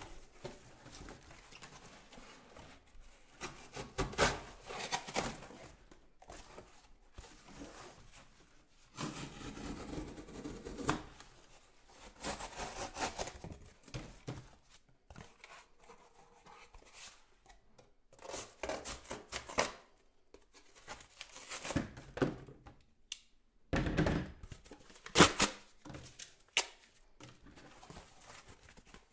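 Corrugated cardboard being ripped and torn apart by hand in irregular bursts, with sharp snaps and thuds as pieces are wrenched off and dropped on a hard floor.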